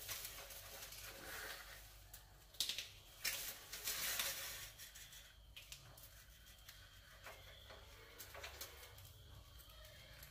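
Rats scrabbling and clambering on a wire-mesh cage trap: faint scratching and rattling, with a cluster of sharper scrapes about three to four seconds in and softer scattered scratches after.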